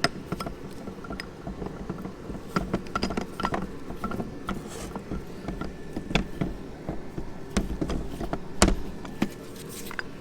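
Small metal clicks and knocks from a piston, connecting rod and wrist pin being handled and fitted together, the loudest knock about eight and a half seconds in, over a steady low hum.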